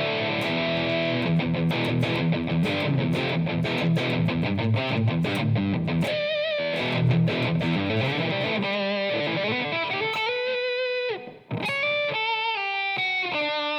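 Thomson TL1 Telecaster-style electric guitar with humbucker pickups played through a heavy-metal high-gain distortion tone: a fast, rapidly picked low riff, then single-note lead phrases with vibrato from about eight seconds in, broken by a short pause near eleven seconds.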